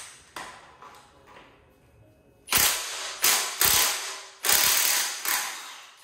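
Cordless impact wrench hammering on the crankshaft pulley bolt of a Toyota 4A-GE 16-valve engine, trying to break the bolt loose. After a few light clicks, it runs in three bursts of about a second each, starting about two and a half seconds in.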